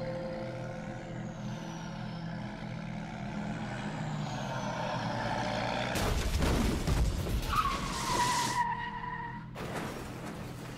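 Crash sound effects of a tractor-trailer slamming into the rear of a pickup truck. A low steady hum gives way, about six seconds in, to a loud crash and skidding noise lasting a couple of seconds, with a tyre squeal falling in pitch. A second burst of crash noise comes shortly before the end.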